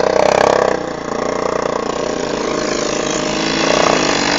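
ATV engine running steadily, loudest in the first moment, with its pitch climbing a little near the end as it revs up.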